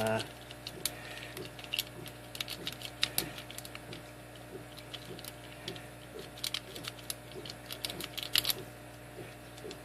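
A lock pick rake being worked in and out of a Master Lock gun lock's four-pin keyway under tension: irregular light metallic clicks and ticks as the rake scrubs over the pins, with small flurries of clicks around the middle and near the end.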